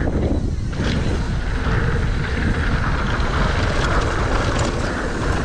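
Steady wind rush on the microphone mixed with tyre rumble on dirt and light rattle from a Santa Cruz V10 downhill mountain bike riding a jump line at speed.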